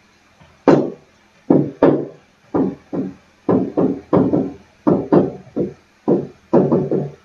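A pen writing on a SMART Board interactive whiteboard: an irregular series of short knocks and scrapes, about two a second, as each digit and stroke is put down.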